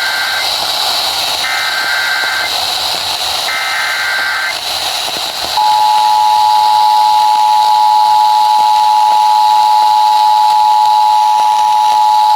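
Emergency Alert System broadcast over FM radio. First come the SAME header's digital data bursts: three buzzy, warbling bursts of about a second each, the first already under way. After a pause of about a second, the EAS two-tone attention signal (853 and 960 Hz sounding together) starts and holds steady. Steady radio hiss runs underneath.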